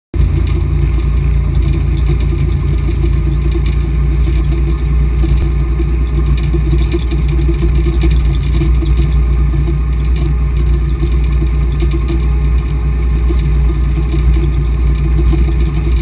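Volvo BM 430 tractor's diesel engine running steadily under load while pulling a plough, heard from inside the cab as a loud, even low rumble.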